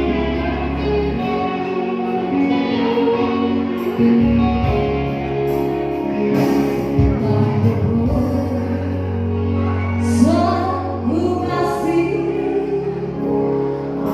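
Music: a voice singing over sustained low accompaniment notes, the singing clearest and gliding in pitch in the last few seconds.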